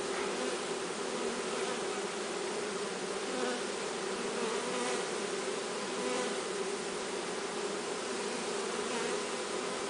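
A swarm of honeybees buzzing: a steady, dense hum that does not let up.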